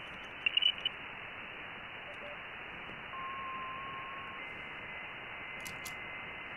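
Shortwave receiver audio from a KiwiSDR web receiver on the 40 m amateur band in sideband mode: a steady band-limited hiss. A steady whistle comes in about three seconds in, then jumps to a higher pitch and holds, as the tuning passes over signals in the band.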